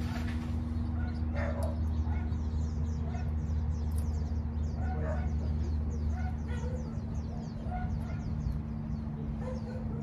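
Domestic fowl clucking and small birds chirping in quick, falling notes over a steady low hum that drops away about seven seconds in.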